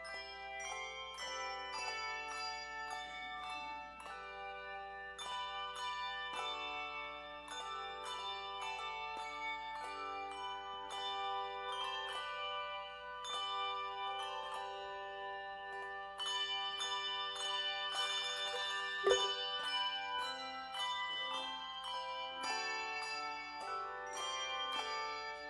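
Instrumental music played on bells: a steady run of struck, ringing notes in a melody, with a single knock about three-quarters of the way through.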